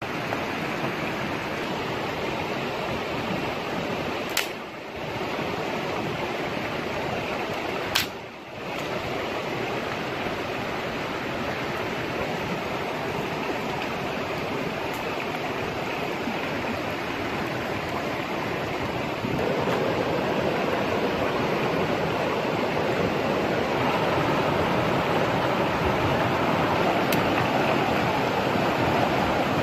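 A fast-flowing stream runs over rocks in a steady rush, louder from about two-thirds of the way through. Two short sharp clicks come about four and eight seconds in.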